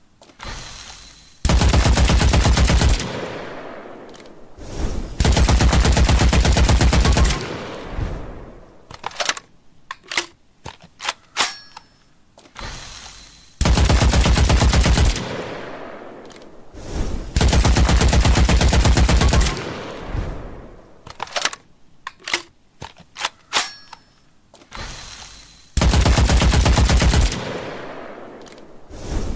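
Machine-gun sound effect: five bursts of rapid automatic fire, each lasting about one and a half to two and a half seconds and trailing off in an echo. Scattered single sharp clicks or shots fall between the bursts.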